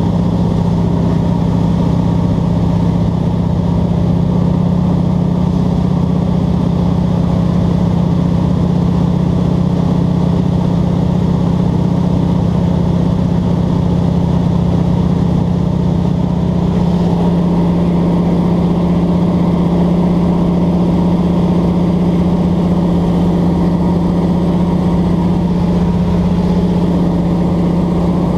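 Single-engine bush plane's piston engine and propeller droning steadily in level flight, heard inside the cabin. The low tone shifts slightly a little past halfway.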